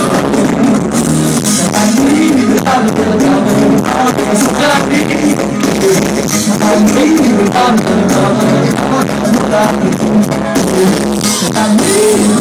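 Live band music with a lead singer, played loud through a festival stage PA and heard from within the crowd.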